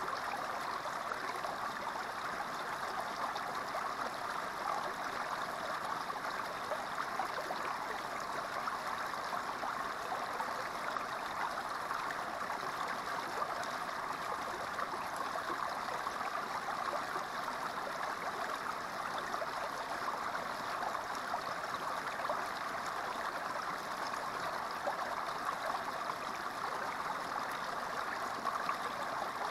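Small creek running steadily, water spilling over a low rock step into a shallow pool.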